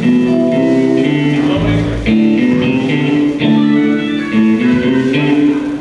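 Instrumental music with guitar to the fore, its notes and chords changing every half second or so, and a low bass note about two seconds in.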